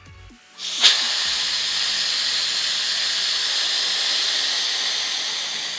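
Air rushing back into an evacuated vacuum chamber as the vacuum is released: a loud hiss that starts sharply about a second in, holds steady, and begins to fade near the end.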